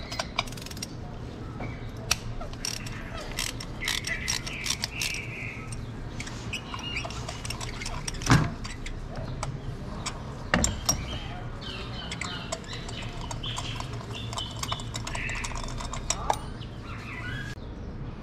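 Ratchet wrench clicking, with tools clinking against metal, as a spark plug is worked loose and taken out of the engine. A sharper knock comes about 8 seconds in and another near 10.5 seconds. Birds chirp on and off over a steady low hum.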